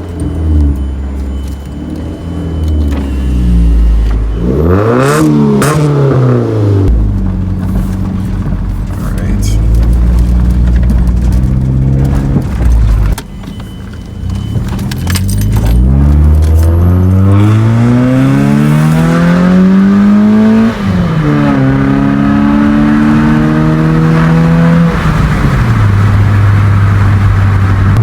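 Car engine starting, then revved up and down several times. It is held at higher revs for several seconds in the second half, dropping back toward idle between revs.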